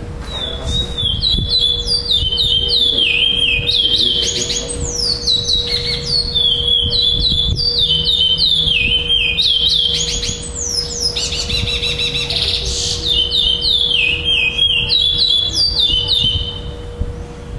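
Adult black male chestnut-bellied seed finch (curió) singing a long, nearly unbroken song of quick, clear whistled notes, many sliding down in pitch and repeated in runs, with a short pause about ten seconds in. This is the repeating song style judged at curió tournaments.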